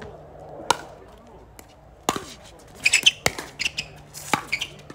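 Pickleball rally: sharp hits of paddles on the plastic ball, about one a second, starting with the serve about a second in.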